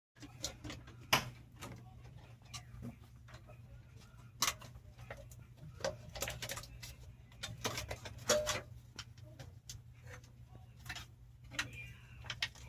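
Scattered, irregular clicks and light knocks of hand tools working on fittings, over a steady low hum.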